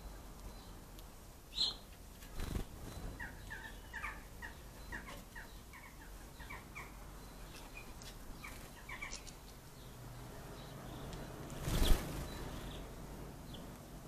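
Small songbirds at a garden feeder giving a series of short chirping calls, several to the second for a few seconds. Near the end, a brief rush of noise is the loudest sound.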